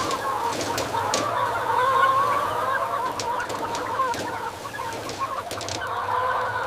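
A large flock of chickens calling all at once, a dense, continuous chorus of clucks and peeps, over a low steady hum.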